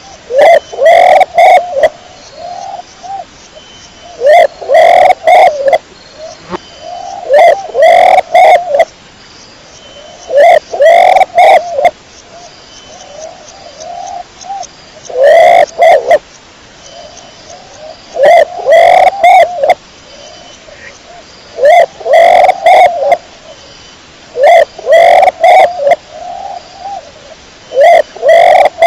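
Pigeon cooing loudly in repeated bouts, about nine in all, each a short cluster of coos coming every three seconds or so.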